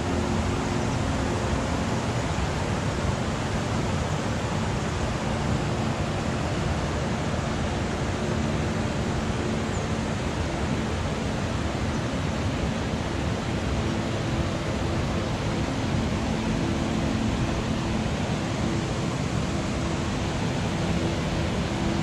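Steady rush of river water pouring over rock ledges and low weirs at a waterfall, an even, unbroken noise.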